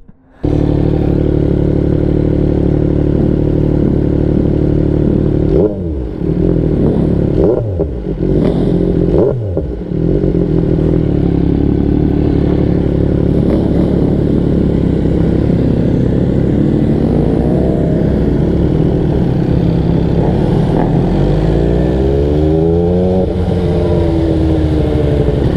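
MV Agusta sportbike's engine running under way, a steady loud drone that cuts in suddenly at the start. Its pitch dips and swings through gear changes about six to ten seconds in, and the revs climb several times near the end as it accelerates.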